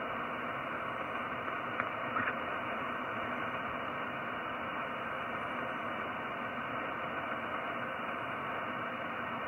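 Shortwave radio receiver tuned to upper sideband on the 15-metre band, giving a steady hiss of band noise on an empty frequency between transmissions, cut off above the voice range. A faint short blip comes about two seconds in.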